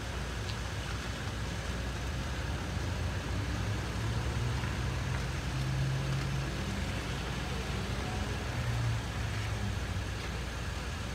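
Steady low rumble of motor noise, with a deeper hum swelling between about four and nine seconds in.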